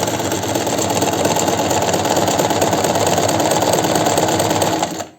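Chaika 143A sewing machine running fast on a zigzag stitch, a steady rapid rattle of needle bar and mechanism that cuts off about five seconds in. The needle is clearing the shuttle cleanly, its zigzag throw freshly adjusted.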